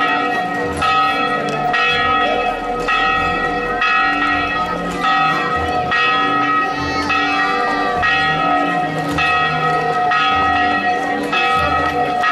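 Church bells ringing, struck over and over in a quick, steady rhythm, with each stroke's ringing overlapping the next.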